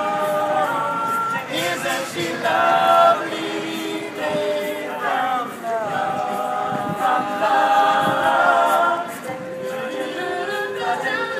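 All-male a cappella group singing in close harmony, several voices holding chords together and moving from chord to chord without accompaniment.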